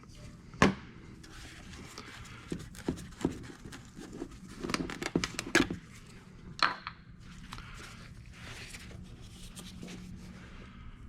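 Plastic handling noises as a jug of motor oil and the engine's oil filler cap are opened: a sharp knock early on, a run of clicks, taps and light crinkling in the middle, and another knock after it.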